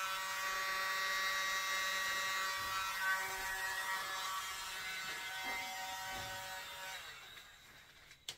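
A mini handheld electric leaf blower's small motor running with a steady whine, then dying away and stopping about seven seconds in.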